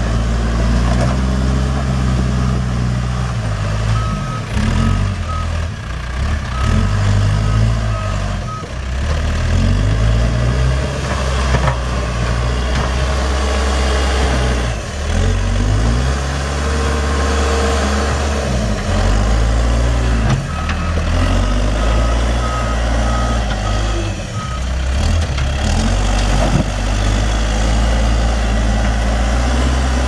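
Case 590 Super M backhoe's diesel engine running, its pitch rising and falling as the machine is worked. Its backup alarm beeps in two spells while it reverses, about four seconds in and again about twenty seconds in.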